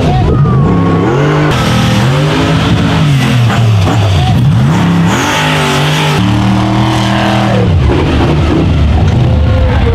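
Rock bouncer buggy engines revving hard under full throttle, the pitch climbing and dropping again and again as the buggies claw up a steep dirt climb. The sound changes abruptly a few times as one buggy's engine gives way to another's.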